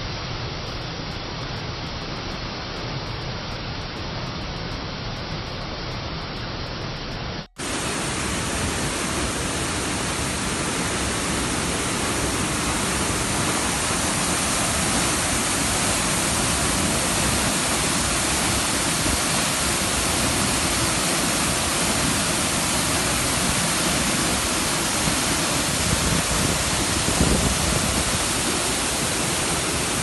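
A waterfall and the rapids below it rushing over boulders: a steady, even rush of water. Just over seven seconds in, the sound cuts out for an instant and comes back a little louder and brighter.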